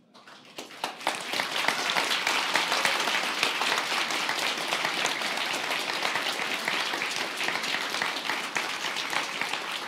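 A large crowd applauding. The clapping swells within about the first second, then carries on steadily and eases slightly near the end.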